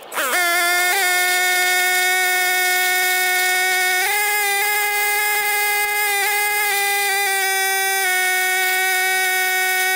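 A small electric motor runs at a steady, loud whine with an even hiss over it. It spins up quickly at the start, holds its pitch with a few small steps, and cuts off abruptly.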